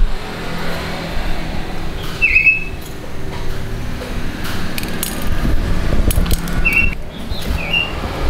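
Small metal engine parts and a throttle cable clicking and clinking as a two-stroke grass-trimmer engine is assembled by hand, with a few short high-pitched chirps about two seconds in and again near the end.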